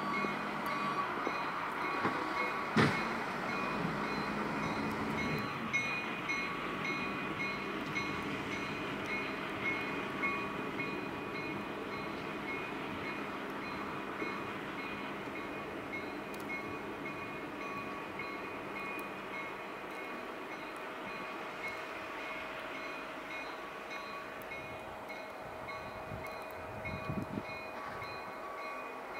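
New England Central diesel locomotives running at low speed, with the engines rumbling and the locomotive bell ringing over and over at an even pace. There is a single sharp clank about three seconds in.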